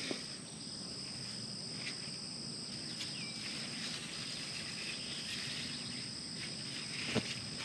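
Outdoor insect chorus: a steady, high, continuous trilling at two pitches, with a few faint clicks in between.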